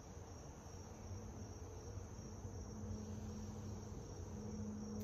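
Insects chirring steadily, one continuous high trill. Underneath runs a faint low steady hum that grows a little stronger about halfway through.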